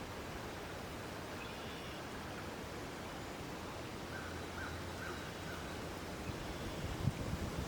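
Steady outdoor background noise with faint bird calls; a short run of four calls comes about halfway through.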